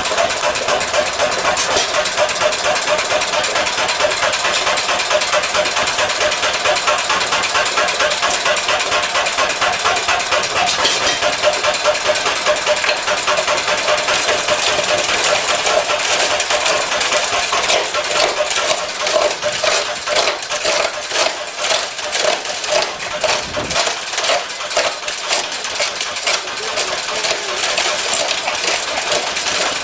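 Old engine-driven rock crusher running and crushing rocks: a fast, steady mechanical knocking, with sharper, more separate knocks in the second half.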